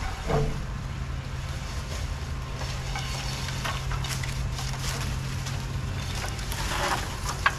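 Drain jetter running: a steady motor hum that settles in just after the start, under the hiss of spraying water, with a louder burst of spray near the end.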